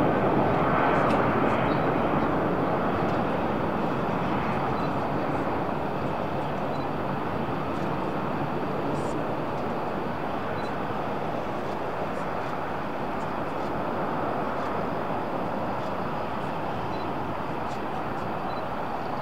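Jet noise of a Boeing 747-400's four engines as it climbs away after takeoff: a steady broad rush that slowly fades as the aircraft recedes.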